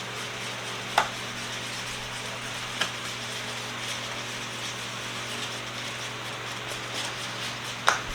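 Glazing compound being mixed by hand, a soft stirring scrape, with three sharp taps: about a second in, near three seconds, and near the end. A steady low hum runs underneath.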